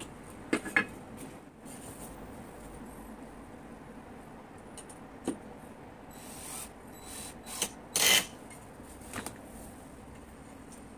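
Scattered knocks and scrapes of a metal angle-bar fishing rod stand being handled and shifted against a wall, with the loudest clatter about eight seconds in.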